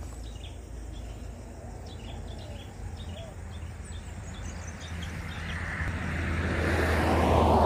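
A road vehicle approaching and passing close by, its noise swelling over the last few seconds and loudest near the end. Faint bird chirps in the first half.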